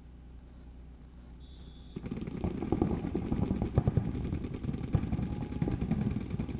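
Paintball markers firing rapidly from several players at once, their shots overlapping into a dense clatter. It starts suddenly about two seconds in, just after a short high beep.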